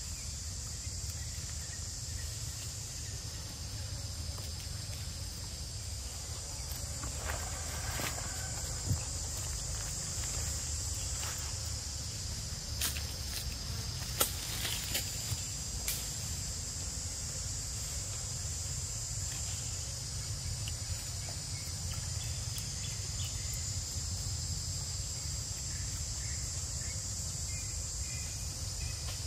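Steady high-pitched drone of an insect chorus in the forest. A few sharp clicks and rustles stand out about halfway through.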